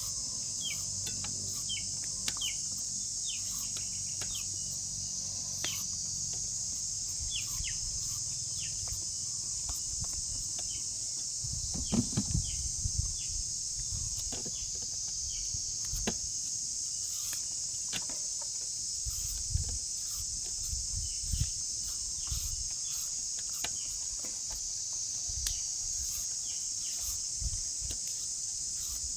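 A steady, high-pitched insect chorus, with short bird chirps over it in the first part. A few low thumps come near the middle and again later.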